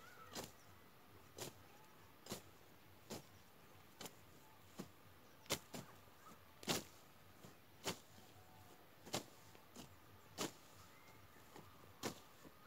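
Blade strokes slashing through grass while clearing a field by hand: a series of short sharp cuts, about one a second at an uneven pace.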